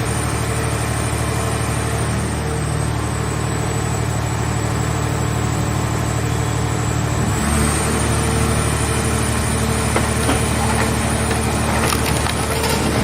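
The engine and hydraulic power unit of a scrap car baler running steadily. A little past halfway the note shifts and it runs harder, as under load, and crackling and snapping of scrap metal being compressed come in near the end.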